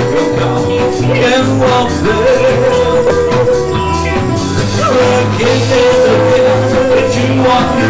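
Live rock band playing an instrumental passage: a long held lead note that bends in pitch, over a steady bass line and drums.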